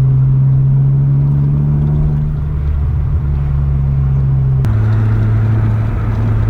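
Car engine droning steadily at a constant cruising pitch, dropping slightly lower after an abrupt change about two-thirds of the way in.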